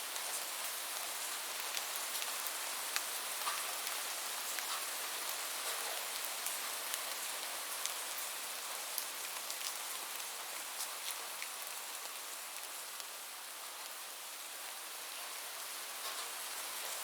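Steady rainfall: a dense hiss of rain with many individual drops ticking on a surface.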